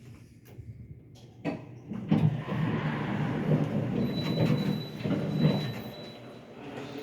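Elevator car running in its shaft: a click about a second and a half in, then a rattling rumble for about four seconds that eases off near the end, with a thin steady high tone alongside.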